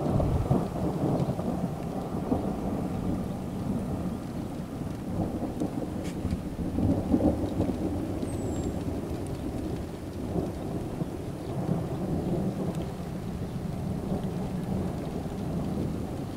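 Long, continuous rolling thunder from a nearby thunderstorm, rumbling low and deep for many seconds and swelling louder about half a second and seven seconds in.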